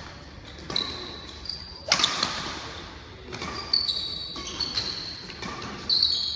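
Badminton rally: rackets strike the shuttlecock several times with sharp cracks, the loudest about two seconds in. Short high squeaks come from the players' shoes on the court floor.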